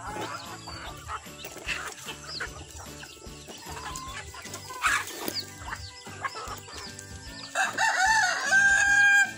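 Backyard chickens clucking, with small chicks peeping throughout. Near the end a rooster crows once, one long, loud, held crow.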